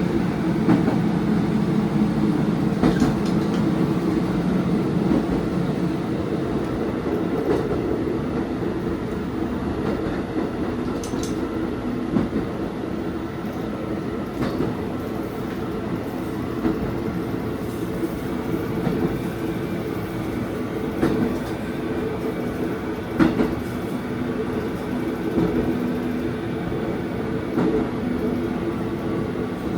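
Diesel railcar running along the track, heard from inside at the front: its engine runs steadily under a constant rumble, with scattered clacks from the wheels over rail joints.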